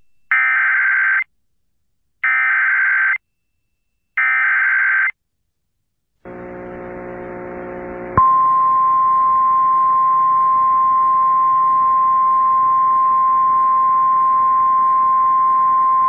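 Emergency Alert System SAME header: three bursts of digital data tones, each about a second long and evenly spaced. After a short gap a low buzz comes in, and about eight seconds in a single steady 1050 Hz weather-service attention tone starts and holds, announcing the flash flood warning that follows.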